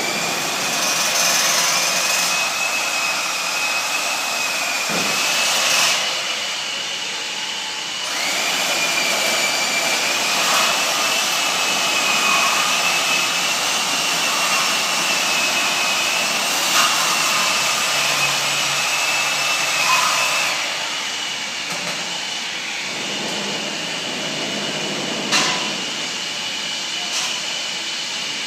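Portable bandsaw cutting through 3-inch steel pipe: a steady high whine with a hiss of the blade in the metal. It eases for about two seconds around six seconds in, runs again until about twenty seconds, then goes on more quietly.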